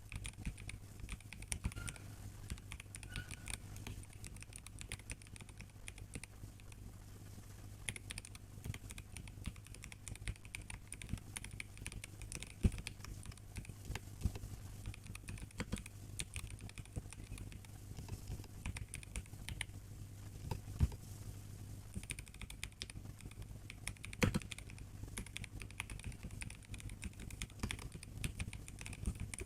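Continuous typing on a MelGeek Mojo84 mechanical keyboard with brown switches and a plastic build: a fast, irregular run of keystroke clicks, with a few louder key strikes, likely the space bar or other larger keys, near the middle and later on. A faint steady low hum runs under it.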